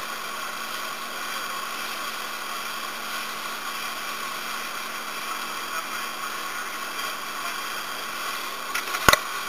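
Motorboat under way: a steady drone of engine and rushing wind and water, with a sharp knock near the end.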